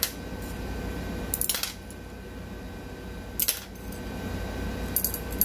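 Stained art glass clinking and scraping as strips are cut and handled: three short, bright sounds about two seconds apart.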